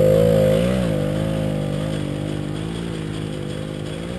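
Suzuki JR50's small two-stroke engine running under throttle, its pitch wavering briefly about a second in, then fading steadily as the bike climbs away up a sandy hill.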